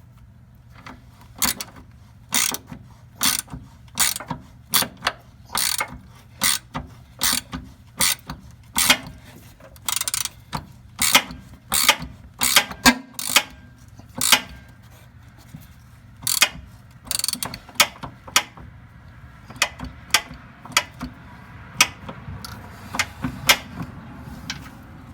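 Hand socket ratchet clicking in short strokes, mostly one or two clicks a second with a few quicker runs, as a bolt on the bump stop mount is worked.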